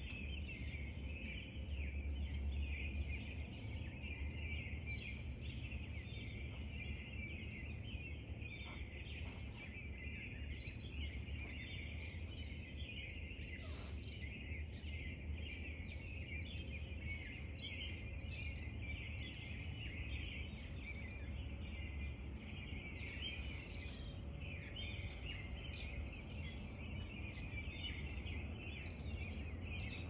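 Early-morning dawn chorus: many songbirds singing at once, with dense overlapping high-pitched calls that never let up, over a steady low rumble.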